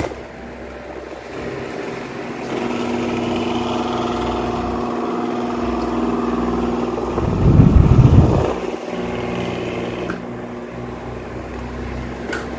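Truck engine running, its note rising and holding steady from about two and a half seconds in, with a brief loud rushing blast of air on the microphone about seven and a half seconds in.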